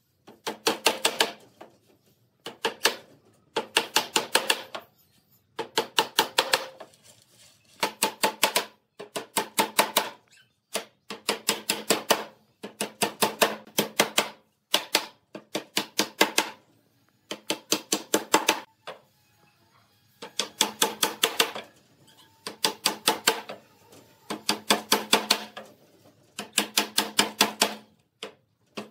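A hammer driving nails into pallet boards, one nail after another. Each nail takes a quick run of ringing strikes, and a new run starts about every two seconds.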